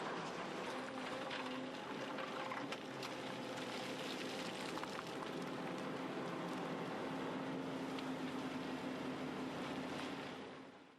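Volvo C-Series crawler excavator at work: a steady engine hum with scattered clicks and rattles, fading out near the end.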